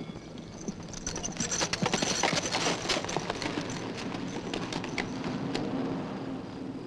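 A quick run of clattering knocks and clicks with a faint jingle, thickest in the first half and thinning out after about three seconds, over a low steady hum.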